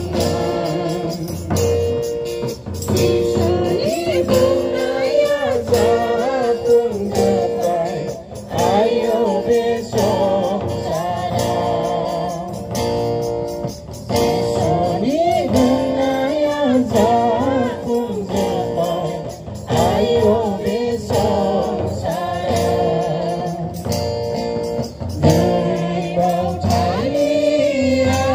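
A group of women singing a hymn together, with a double-headed hand drum keeping a steady beat underneath.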